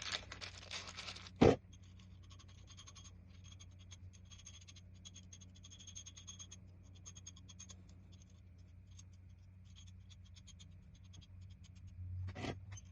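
A steel nut being spun along the threads of a zinc-plated carriage bolt: a faint, steady scratchy ticking of metal thread on thread, with a sharp click about a second and a half in and a knock near the end.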